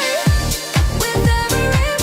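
Electronic dance music: after a held, drumless passage, a deep kick drum with a quickly falling pitch comes in about a quarter second in and keeps a steady beat under sustained synth tones.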